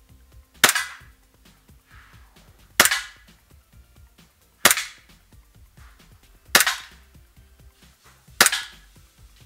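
EMG SAI BLU gas blowback airsoft pistol running on CO2, fired five times at an even pace, about one shot every two seconds. Each shot is a sharp crack with a short ring-out.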